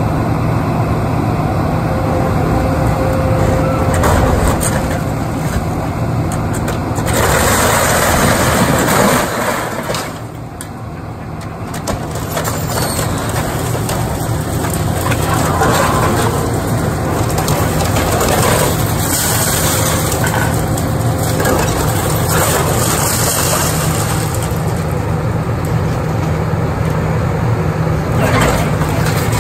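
Link-Belt hydraulic excavator's diesel engine running steadily under load as its bucket and thumb tear into a brick building's entrance canopy. Sheet metal and masonry crunch and crash several times, loudest about seven to nine seconds in.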